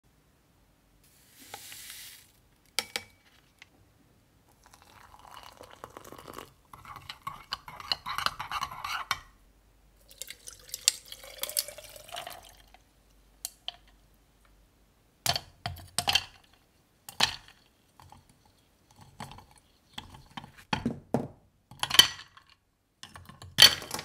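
Coffee being poured over ice cubes into a glass mug, in two stretches of pouring with dripping. It is followed by a series of sharp clinks of ice and glass, the loudest near the end.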